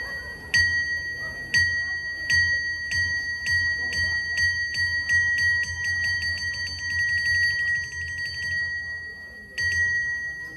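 A small metal bell struck over and over, first about once a second, then faster and faster into a rapid roll that breaks off. A few more strikes come near the end. Each strike has a low thud beneath it.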